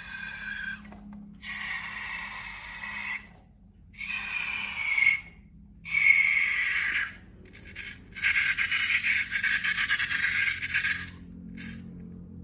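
Rubber balloons squeaking as they are rubbed and squeezed, in about five separate squeaky bursts with short pauses between them. Some squeaks slide down in pitch, and the longest runs through the second half.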